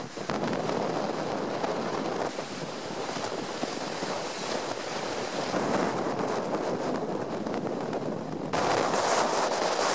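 Föhn storm wind blowing hard against the microphone, with lake waves breaking and surging on the shore. The noise turns louder and brighter about eight and a half seconds in.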